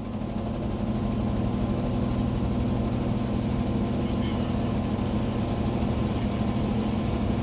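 Robinson R44 helicopter in fast, low forward flight, heard from inside the cabin: a steady drone of the piston engine and rotors. It swells over the first second, then holds level.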